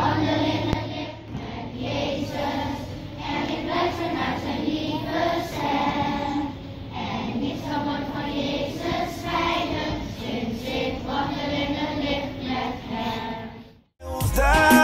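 Large group of schoolchildren singing together in unison, which stops abruptly near the end.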